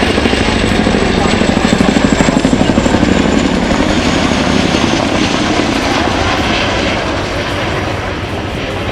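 Boeing Chinook HC2 twin-rotor helicopter flying past: a rapid, heavy beat from its tandem rotors with a high turbine whine that falls in pitch. It is loudest in the first few seconds, then slowly fades.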